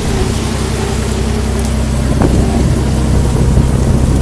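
Fishing boat's machinery running steadily with a loud low hum under a steady hiss, and a single sharp knock about two seconds in.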